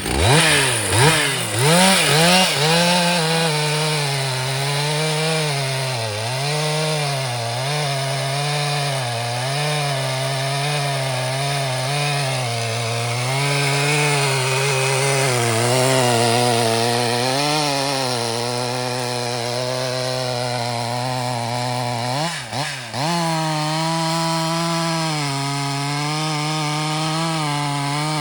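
Stihl MS 881 two-stroke chainsaw running hard and continuously, blipped up and down a few times at the start, then held high with its pitch wavering up and down. About 22 seconds in the engine note dips briefly and comes straight back up.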